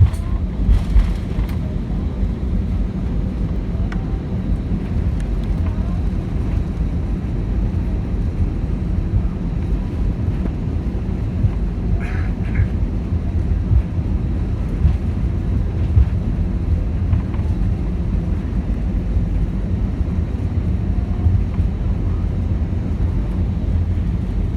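Steady low rumble of an Airbus A319-100's cabin while taxiing, its CFM56 engines at idle.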